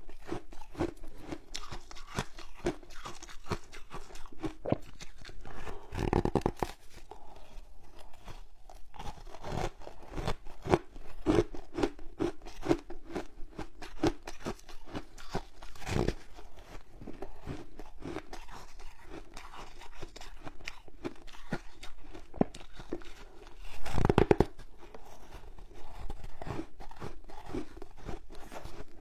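Biting and chewing a sheet of frozen passion fruit foam ice: dense, rapid crunching and crackling, with louder bites about 6, 16 and 24 seconds in.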